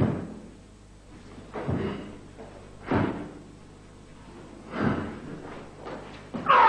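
Karate kata techniques: about four sharp snaps and thuds of the cotton gi and bare feet landing on a wooden floor, a second or two apart. Near the end comes a loud short shout, a kiai.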